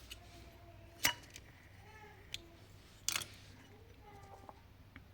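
A lighter being clicked to light a fire lighter on a kindling stick: a few sharp clicks, the loudest about a second in and about three seconds in, with a lighter one between.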